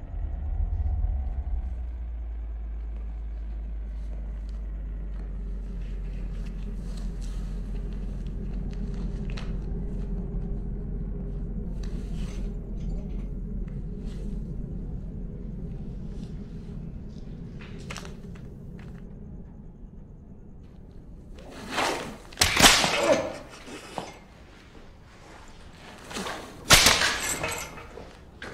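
A low steady drone, then whip lashes: a loud cluster of sharp cracks about 22 seconds in and another single loud crack about four seconds later.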